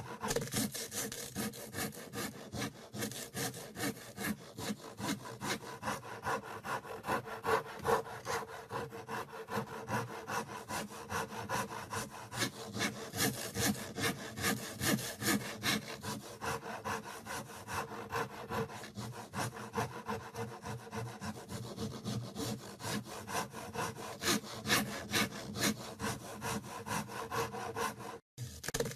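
Handsaw cutting through wood in steady back-and-forth strokes, about two strokes a second, with a brief break near the end.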